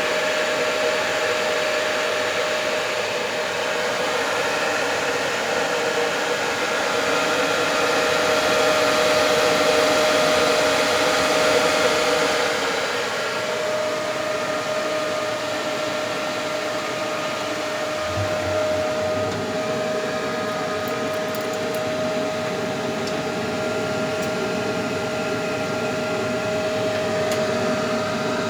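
Computer cooling fans running: a steady airy whir with a constant whine, the hiss easing off a little about halfway through.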